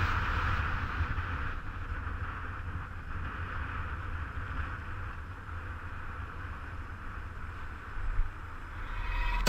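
Wind buffeting the microphone of a helmet-mounted camera on a moving mountain bike, a steady rushing noise with a heavy low rumble. A brighter hiss in it eases off after the first second or two.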